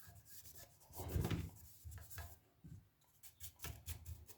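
Faint, irregular rubbing and scrubbing strokes on the power transformer of a Pioneer SX-1250 receiver as it is cleaned by hand with alcohol, with a few small scrapes and ticks between the strokes.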